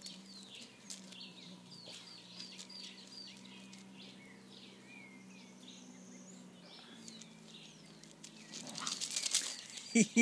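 Small birds chirping and twittering over a low steady hum. Near the end a louder rush of noise comes in, with a few short sharp sounds.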